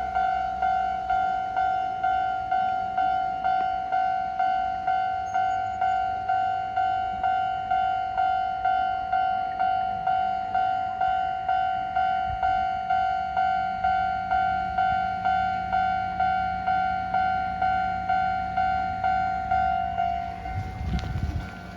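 Japanese railway level-crossing warning alarm ringing, a steady ding-ding at about two strokes a second. It stops shortly before the end, and a brief low rumble follows.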